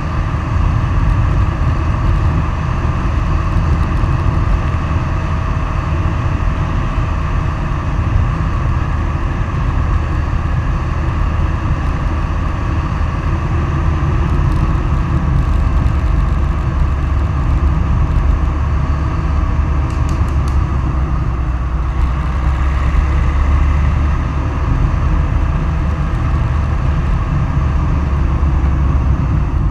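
Steady rumble of wind rushing over the microphone and wheels rolling on asphalt at downhill speed, with a faint steady whine above it.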